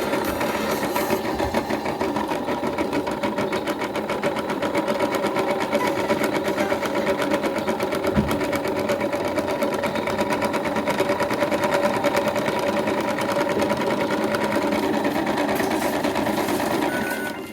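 Toy washing machine's small electric motor running, a steady rapid whirring rattle that cuts off near the end.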